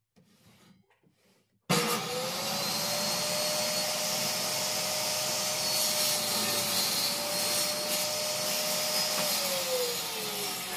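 Table saw switched on about two seconds in, its motor and blade running with a steady whine over a rushing hiss. Near the end it is switched off and winds down, the whine falling in pitch.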